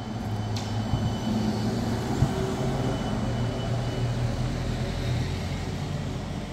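Articulated electric trolleybus passing close by and pulling away: a steady low hum of its drive and tyres with a thin high whine, growing slightly fainter near the end. A single sharp click about half a second in.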